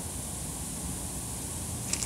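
Steady background hiss with a low rumble and no distinct handling sounds, followed by a few small clicks right at the end.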